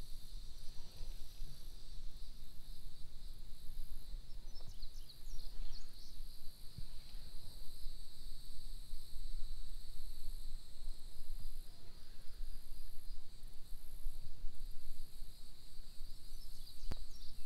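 Steady high-pitched drone of a summer insect chorus, with a low rumble underneath and a few short high chirps about five seconds in.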